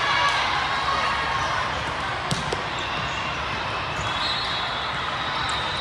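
Echoing ambience of a large sports hall during volleyball play: many distant voices, with a sharp ball smack a little over two seconds in, followed quickly by a second, fainter one.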